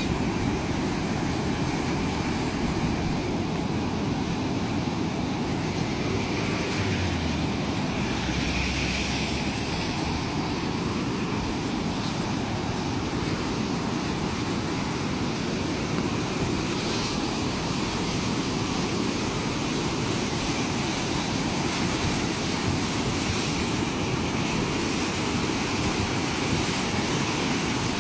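Steady rush of muddy floodwater surging down a dry riverbed as the river's flood front arrives.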